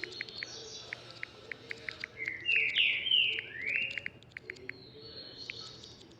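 A bird chirping: four loud, quick sweeping chirps a little after halfway, with fainter twittering at the start and near the end, over a steady run of short light clicks.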